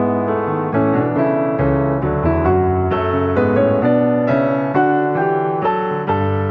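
Background piano music: a gentle melody of struck notes over low held bass notes.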